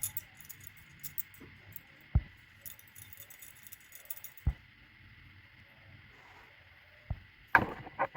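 Spoon or utensil clinking and tapping against a mixing bowl while the pickle spice mix is stirred: scattered light ticks, three sharper knocks, and a quick run of clinks near the end.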